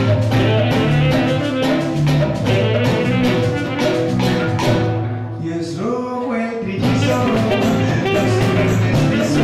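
Live band music: a saxophone playing over steady cowbell and block percussion, with guitar and a low bass line underneath. The percussion drops out briefly about five seconds in and comes back a couple of seconds later.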